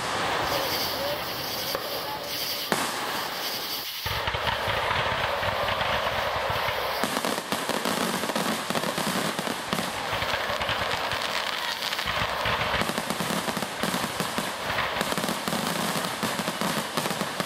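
Aerial fireworks shells bursting in rapid succession, a dense, near-continuous barrage of bangs and crackle with no pauses. It grows heavier about four seconds in, as more shells go up together.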